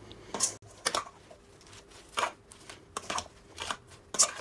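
Metal serving spoon and fork tossing a chopped salad in a stainless steel mixing bowl: a run of about eight short, uneven scraping strokes, the loudest near the end.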